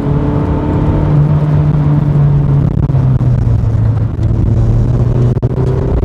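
A 2000 Toyota MR2 Spyder's mid-mounted 1.8-litre four-cylinder engine running steadily under way, heard from the car with road rumble beneath it. The engine note rises a little about a second in, then eases back.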